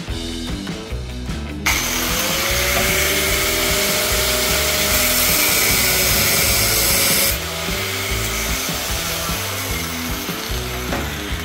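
Angle grinder with a cutting disc starts about two seconds in, its whine rising as it spins up, and cuts into a motorcycle exhaust header pipe, then stops suddenly about seven seconds in. Background music with a steady beat runs under it.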